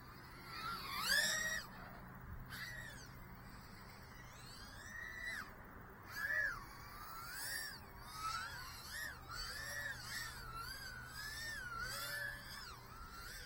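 Brushless motors of a 2-inch 2S micro FPV quadcopter whining, the pitch sliding up and down with the throttle. The loudest rise comes about a second in, and the whine swoops up and down quickly, about twice a second, over the last few seconds.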